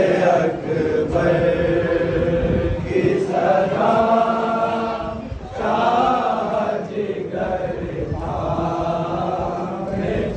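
Nauha, a Shia lament for Muharram, chanted by a male reciter through a microphone with other voices of the gathering joining in, in long phrases with a short break near the middle. Dull thuds of matam, hands beating on chests, run underneath.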